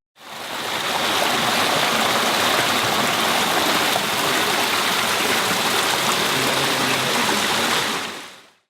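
Steady rushing sound of running water, fading in at the start and fading out about eight seconds in.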